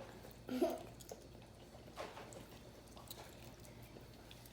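Faint eating sounds: chewing with small squishes and clicks as seafood boil is eaten by hand, and a brief murmur about half a second in.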